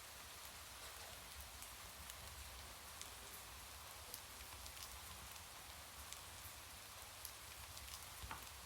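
Steady rain falling, a soft even hiss dotted with the sharp ticks of single drops hitting a surface.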